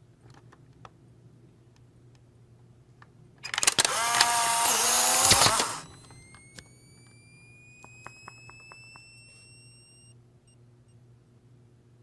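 Polaroid instant camera ejecting a print: a loud motor whir about three and a half seconds in that lasts about two seconds and winds down. It is followed by the flash recharging, a thin high whine that rises slowly for about four seconds. A few light clicks come before the whir.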